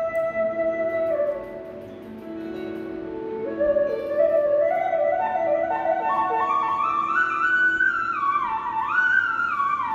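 Background instrumental music: a flute melody winding up and down in pitch, softer about two seconds in, then climbing higher and louder.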